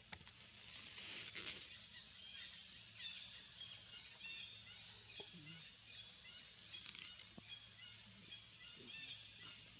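Faint outdoor background of a steady high hiss with many short, high chirps and a few soft clicks.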